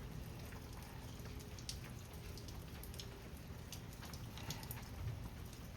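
Faint, scattered light clicks and taps of small parts and tools being handled while a chainsaw is taken apart, over a low steady hum.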